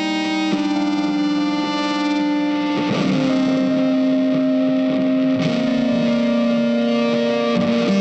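Slow instrumental background music of long held notes, moving to a new note or chord every two to three seconds.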